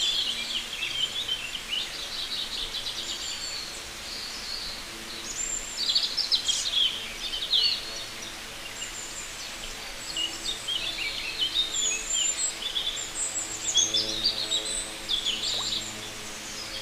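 Several birds singing and chirping, quick high-pitched trills and chirps overlapping and coming in clusters over a steady background hiss.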